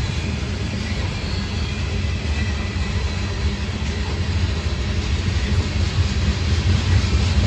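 Tank cars of a freight oil train rolling past: a steady rumble of steel wheels on rail, growing a little louder near the end.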